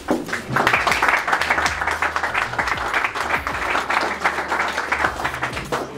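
A small audience applauding: an even patter of clapping that starts just after the beginning and stops near the end.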